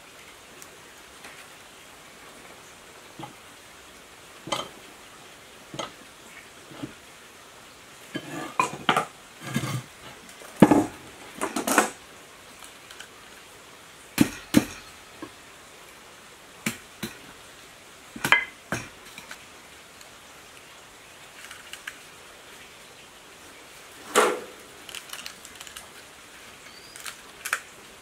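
Irregular knocks and light metallic clinks of hand work on an electric motor stator: a wooden mallet tapping the copper winding coils down into the metal stator housing, with tools and wire handled between the taps. The knocks come in clusters, busiest in the first half.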